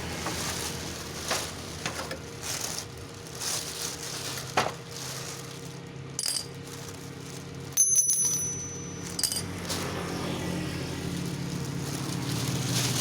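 Scattered knocks and clicks over a steady low hum. About eight seconds in, a sharper metallic clink rings briefly.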